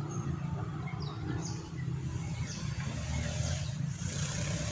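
Outdoor ambience: a steady low rumble on the microphone, with short, high, falling bird chirps about once a second. A vehicle grows louder from about three seconds in.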